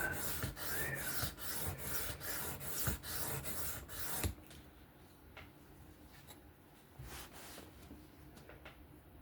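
3V steel knife blade being stroked freehand across a 1200-grit sharpening stone: rhythmic rasping strokes, about two or three a second, that stop about four seconds in, leaving only a few faint scrapes.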